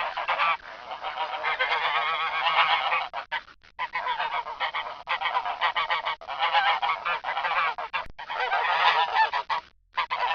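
A flock of geese honking, many calls overlapping in a continuous clamour, with short breaks about three and a half seconds in and near the end.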